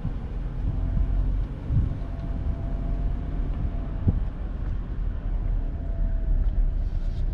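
Car moving slowly, heard from inside the cabin: a steady low engine and road rumble, with a couple of short knocks from bumps, one about four seconds in.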